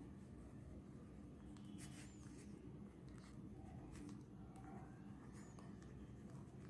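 Faint scratching of a pen writing on paper over a low steady room hum.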